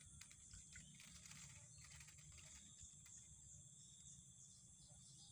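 Near silence: faint, steady cricket chirring, with a few faint splashes and clicks in the first couple of seconds from hands working in shallow muddy water.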